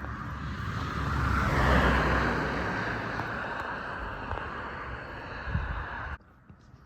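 A car driving past: its engine and tyre noise swells to a peak about two seconds in and slowly fades, then cuts off suddenly near the end.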